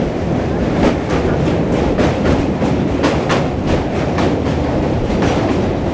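Suburban electric local train running at speed, heard from aboard: a steady rumble with the wheels clicking over rail joints about once a second.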